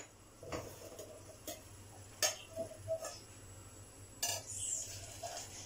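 Metal clinks and knocks of a stainless steel Turkish double teapot being handled on the stove while tea is brewed: a handful of separate taps about a second apart, the longest about four seconds in.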